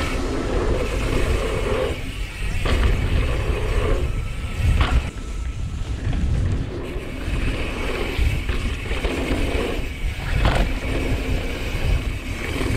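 Wind buffeting an action-camera microphone over the rumble and rattle of a mountain bike descending a dirt trail at speed, with a few sharp knocks as the bike hits bumps.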